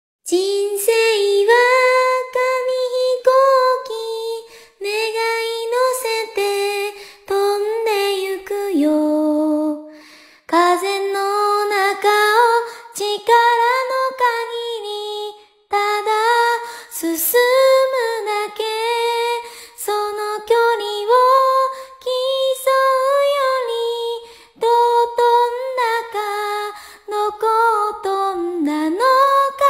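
A woman singing a slow pop melody solo, with no instruments heard, in phrases of a few seconds broken by short breaths.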